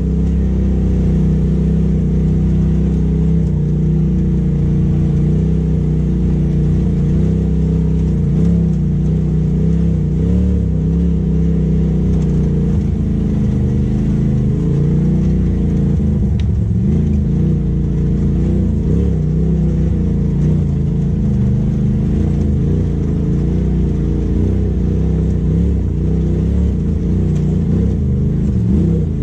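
Polaris RZR side-by-side's twin-cylinder engine running under light throttle on a rough trail, heard from inside the cab, its pitch rising and falling a little as the driver eases on and off the gas.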